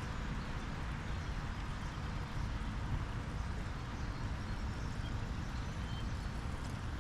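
Steady rushing of a high, fast-flowing creek, an even wash of water noise with a low rumble underneath.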